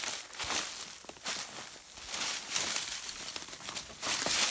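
Footsteps crunching through dry leaf litter on a steep slope, an uneven run of crackly crunches roughly one or two a second.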